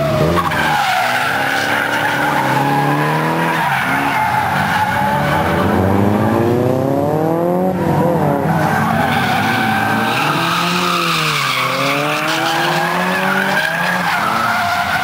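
Drift cars sliding through a corner: rear tyres squealing steadily while the engines rev up and down several times as the drivers work the throttle. There is a long climb in revs that drops off about eight seconds in, then another dip and rise a few seconds later.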